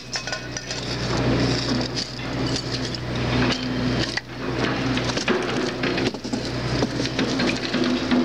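Scrap metal clanking and clinking as pieces are unloaded and tossed onto a pile, over the steady hum of a nearby engine or machine.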